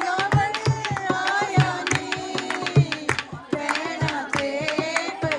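Singing with a dholak-style hand drum keeping a steady beat of about four strikes a second.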